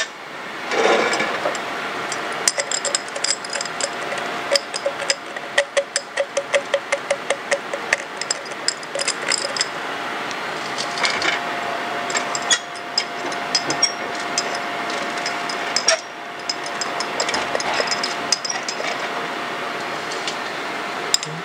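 Small PPC plastic beads rattling and clicking against their jar and the weighing dish in quick irregular runs as they are shaken and scooped out, over a thin steady hum.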